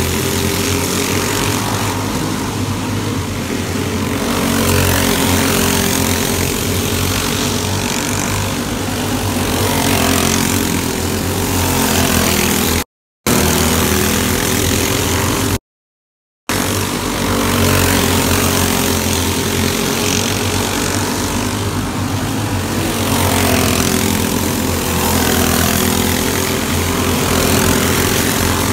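Engines of several small caged dirt-track karts running laps together at steady high revs, swelling and easing as the pack goes by. The sound cuts out briefly twice around the middle.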